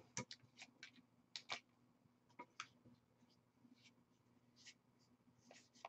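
Faint, scattered rustles and soft clicks of a stack of Magic: The Gathering trading cards being handled and slid through the fingers, busiest in the first second and a half and again near the end.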